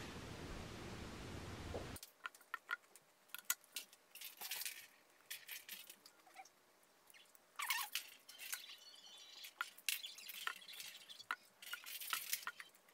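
A faint steady room hiss that cuts off about two seconds in, then scattered soft clicks, taps and light clinks of a fork against a ceramic plate and a phone being handled.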